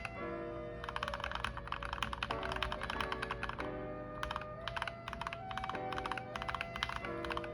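Fast typing on a Kemove Shadow 60% mechanical keyboard fitted with lubed and filmed Gateron Ink Black linear switches: dense runs of keystrokes broken by short pauses. Background music plays underneath.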